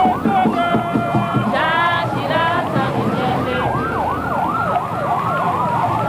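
Escort vehicle sirens in a motorcade, one on a fast yelp that sweeps up and down about three times a second. In the second half a slower wail slides down in pitch alongside it.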